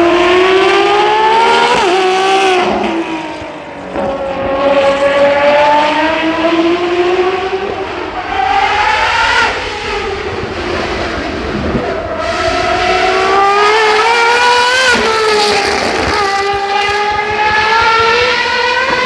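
Racing car engine accelerating hard up through the gears: its pitch climbs steadily in each gear and drops sharply at each upshift, several times over.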